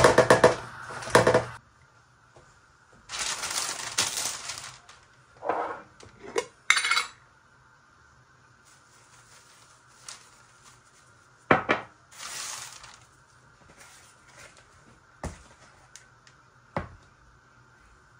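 Kitchen ware clattering: dishes, pans and utensils knocking and clinking. A fast run of clicks comes in the first second or so, then single sharp knocks and short rustles here and there.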